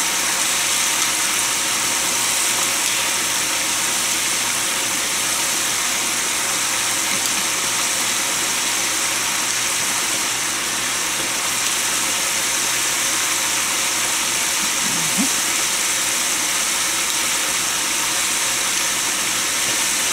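Battered chicken frying in hot oil in an open aluminium pressure-cooker pot: a steady, loud sizzle. This is the first minute of the fry, with the oil temperature falling after the chicken went in.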